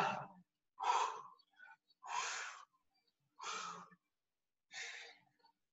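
A person breathing hard from exercise, four forceful exhales spaced about a second and a half apart, during reverse lunges with dumbbell curls.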